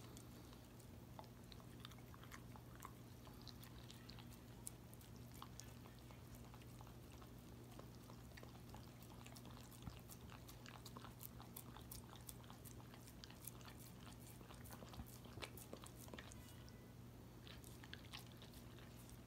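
Faint wet chewing and licking of a dog eating food off a plate: many small smacking clicks that come thicker in the second half, over a faint steady low hum.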